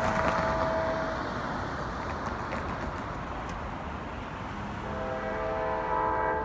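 Distant horn of an approaching CSX GE AC4400CW (CW44AC) diesel locomotive. One chord-like blast ends about a second in, and another, a chord of several steady tones, starts near the five-second mark and grows louder. A car drives across the tracks at the start.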